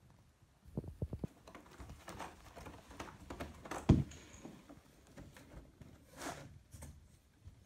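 Cats moving about on a wooden floor and around a cardboard cat house: scattered soft taps and knocks, a few dull thuds about a second in, and one louder thump about four seconds in.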